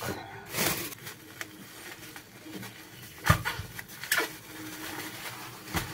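Plastic bags of boiled cowpea pods crinkling and rustling as they are handled and set down on a granite countertop, with a few short knocks.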